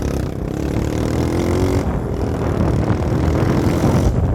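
Motorcycle engine accelerating under way, its pitch climbing, dipping briefly about two seconds in and then climbing again, with wind rushing past.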